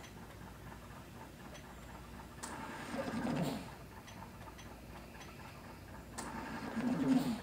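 Assisted breathing on a home ventilator: two breaths, each about a second long, come about every three and a half seconds, with rushing air and a low wavering sound as each breath passes. Faint ticks sound between the breaths.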